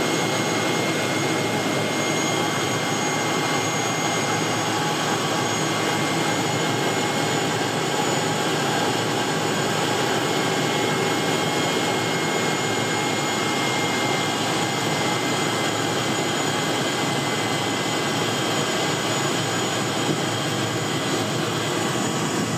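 Single-engine floatplane's engine and propeller running steadily, heard from inside the cockpit as the plane taxis on the water.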